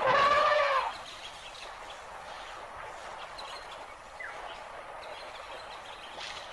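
Elephant trumpeting once, a loud call of about a second whose pitch arches up and falls back, followed by a steady outdoor hiss with a few faint chirps.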